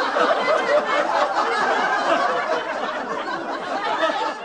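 Canned audience laughter: a laugh track of many people laughing together, dense and even throughout.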